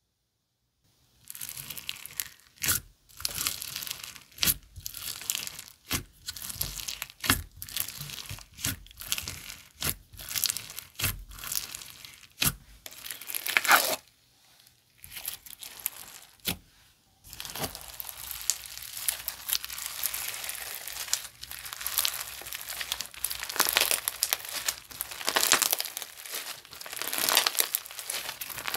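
Lemon Bing slime, made from Elmer's glue and Korean glue, being stretched, squeezed and poked by hand with uneven crackling and sharp popping clicks. From about 17 seconds in, the crackling turns denser and continuous.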